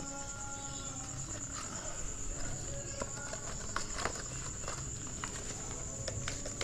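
Cardboard box and its paper insert and manual being handled and slid apart, giving scattered light taps and rustles, over a steady high-pitched whine.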